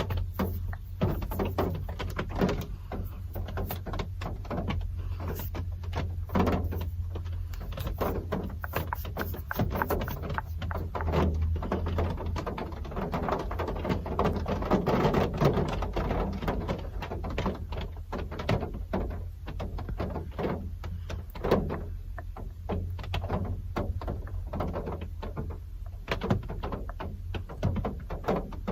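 Real rain falling, heard as many irregular sharp drops ticking on hard surfaces over a steady low hum.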